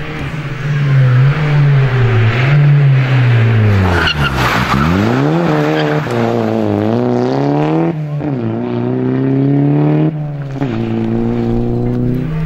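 Rally car engine revving hard as the car approaches, the revs falling sharply about four seconds in as it brakes. It slides through a corner, then accelerates away, the engine note climbing and dropping with upshifts near six, eight and ten and a half seconds.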